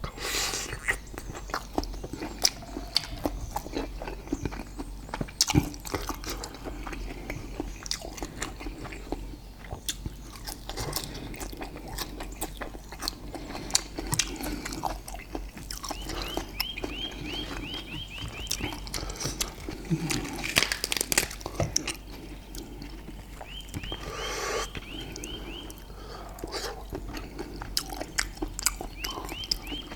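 Close-miked eating: chewing and biting of grilled steak and sticky rice, with many small wet clicks. Three times, a faint run of rapid high chirps comes in.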